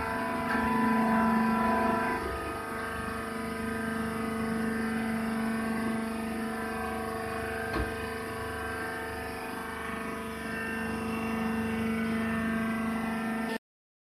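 Hydraulic baler's power unit, its electric motor and pump running with a steady hum, with a single short click about eight seconds in. The sound cuts off briefly near the end.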